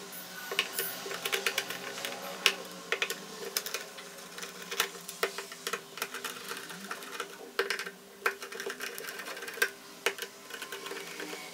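A screwdriver backing screws out of a mixer grinder's plastic base: a run of small, irregular clicks and scrapes of the metal tip on the screw heads and plastic.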